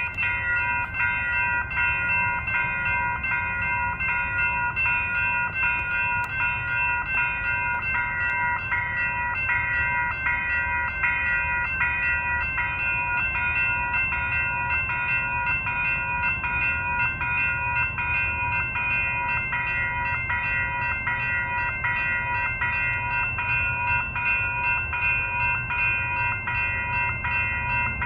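Railroad grade-crossing warning bell ringing over and over at an even pace while the gates are down, with a low train rumble underneath that grows a little near the end.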